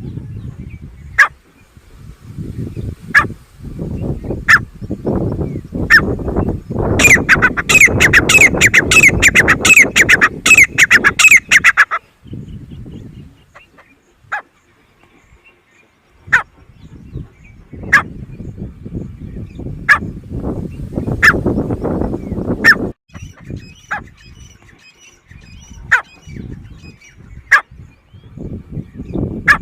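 Grey francolin calling: a loud, rapid run of repeated shrill notes lasting about five seconds, starting about seven seconds in. Sharp clicks recur every second or two, with stretches of low rumbling noise between.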